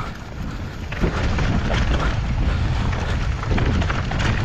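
Mountain bike rattling and crunching down a rough, slippery dirt trail, with wind buffeting the microphone; it gets louder about a second in.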